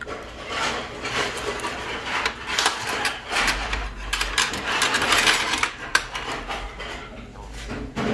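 A dense run of clicking, clinking and rustling from tableware being handled at a meal tray, with the clatter thickest in the middle and easing off near the end.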